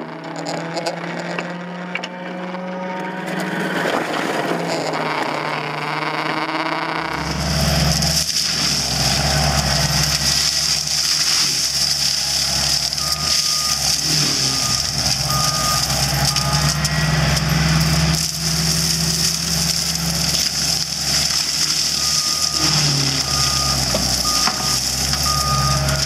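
Skid steer's diesel engine running hard while it drives a forestry mower head through brush; a steady high whine joins it about a quarter of the way in. From about halfway, the machine's reversing alarm beeps in repeated runs.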